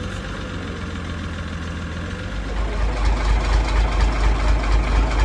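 A crane truck's diesel engine running at idle. A little over two seconds in, the sound grows louder and deeper, with an even throb.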